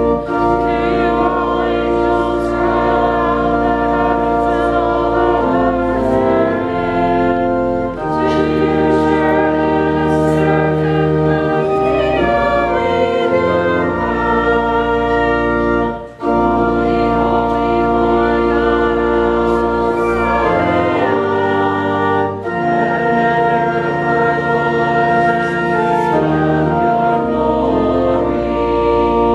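Church organ playing a slow hymn in long held chords, with congregational singing along, pausing briefly between lines.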